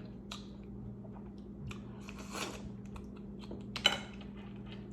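Faint eating sounds from crab legs: small clicks and crackles of shell being handled and chewed, a brief crunch about two seconds in and a sharper crack near four seconds, over a steady low hum.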